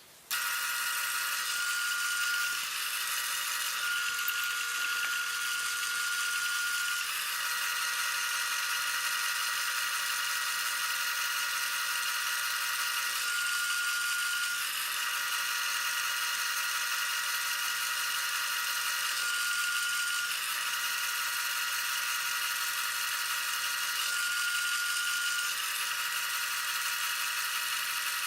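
Small wood lathe switched on just after the start and running at a steady speed, its motor giving off a steady high-pitched whine.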